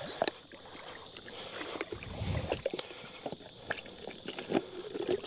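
Water dripping and trickling off a clear plastic poddy mullet trap just lifted from the water, with scattered light taps and clicks as the trap is handled against the boat's side, and a soft low thump about two seconds in.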